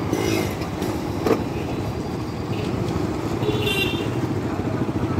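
Motorcycle engine running steadily while riding along a street, with road and wind noise. A brief pitched sound comes right at the start, and another high one comes a little before four seconds in.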